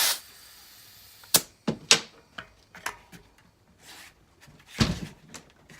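A burst of compressed air from an air chuck on a bicycle tyre valve cuts off right at the start and leaves a faint hiss for about a second. Then come scattered sharp clicks of the metal chuck and hose being handled at the valve, and a heavier knock near the end.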